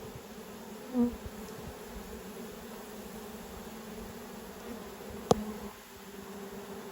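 Honey bees buzzing steadily around an open hive, with a brief louder buzz about a second in. A single sharp click sounds about five seconds in.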